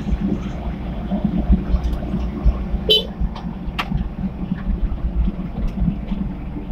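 Mini excavator's diesel engine running steadily, with a short horn toot about three seconds in and a few sharp knocks.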